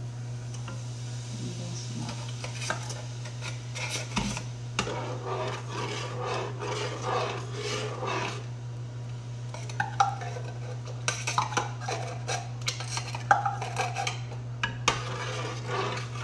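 A metal utensil clinking and scraping against a can and a cooking pot as condensed milk is emptied into the pot. The clicks are irregular and come thickest in the second half, over a steady low hum.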